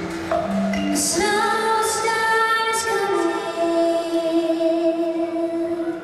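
Live music: women's voices hold long sustained notes over cello and piano, the song's closing chords ringing out in a large arena. The music fades just at the end, before applause.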